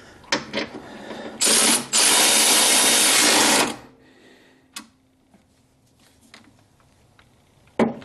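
Milwaukee FUEL cordless ratchet running in two spurts, a short one about a second and a half in, then a longer one of nearly two seconds, as it drives a nut down onto a bracket stud. A single sharp click follows.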